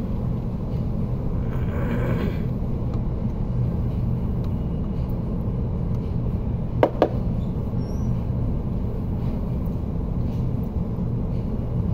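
Steady low background hum and rumble, with two sharp clicks close together about seven seconds in.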